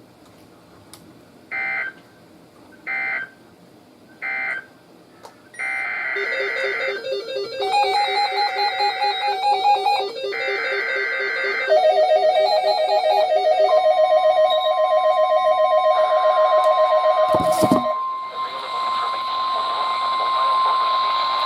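NOAA Weather Radio SAME data header for a new severe thunderstorm warning: three short bursts of digital tones. After them, several weather alert radios sound their alarms together, overlapping pulsing beeps at different pitches. About two-thirds of the way in, the steady 1050 Hz warning alarm tone joins, with a brief click near the end.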